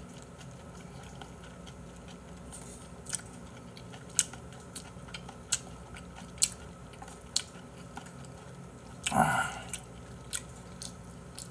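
A person eating beef tripe hotpot with rice close to the microphone: chewing with scattered short, sharp clicks and smacks, and one louder, longer mouth sound about nine seconds in.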